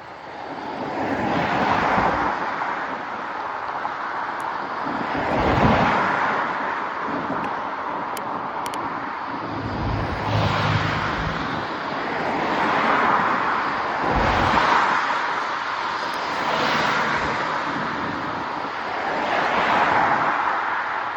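Rushing wind noise from riding a bicycle, swelling and easing every few seconds, with a few low buffeting rumbles on the microphone.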